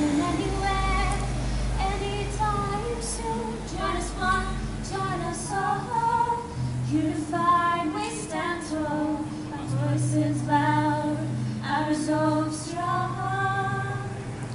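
Two women's voices singing a slow song, accompanied by an acoustic guitar, recorded on a phone's microphone.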